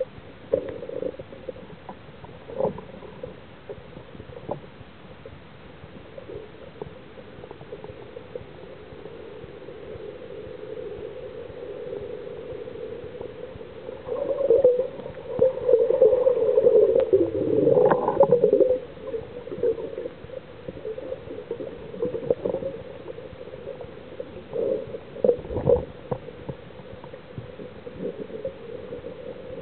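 Muffled underwater sound through an action camera's waterproof housing: a steady hum with scattered clicks and knocks, growing louder and busier for a few seconds around the middle.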